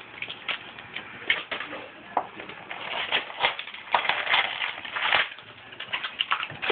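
Foil booster-pack wrappers crinkling and tearing, with cards being handled, in a run of short crackly rustles that is densest in the middle.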